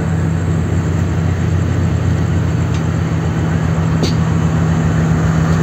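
Diesel engine of a Sri Lanka Railways Class S14 diesel multiple unit running with a steady low drone close by.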